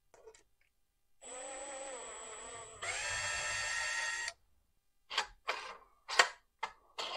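Cordless drill-driver driving a screw into a 3D-printed plastic rail: the motor whines steadily for about three seconds, speeding up and getting louder about halfway through. A few short clacks follow near the end.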